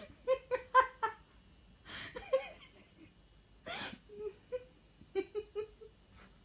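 Short high-pitched cries in quick runs of three to five, with breathy huffs and gasps between the runs.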